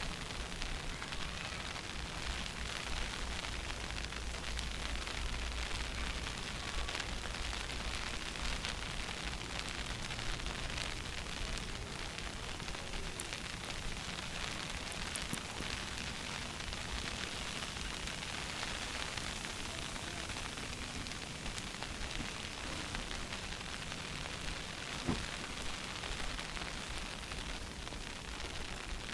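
Steady rushing noise of a snowstorm on a city street, with wind buffeting the microphone and a low rumble that is strongest in the first several seconds.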